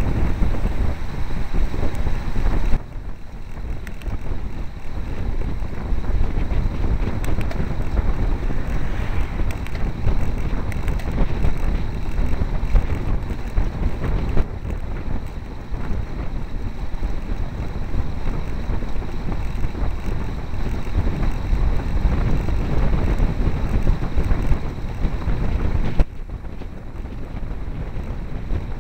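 Steady wind buffeting the microphone of a camera riding on a moving bicycle, a deep rushing noise. It drops abruptly about three seconds in and again near the end.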